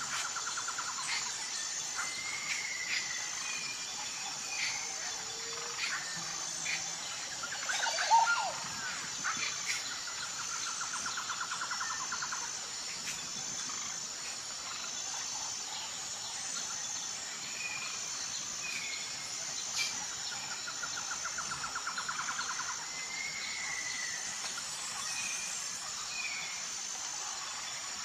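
Outdoor nature ambience: birds chirping over a steady, high, pulsing insect chorus, with a short trill that comes back a few times.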